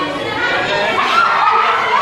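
A group of teenagers talking over one another and laughing, with several voices overlapping at once.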